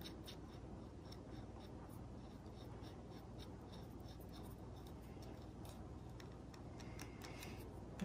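Faint, even ticking and scraping of a 15 mm rod being twisted by hand onto an articulating arm's threaded bolt, about three to four ticks a second.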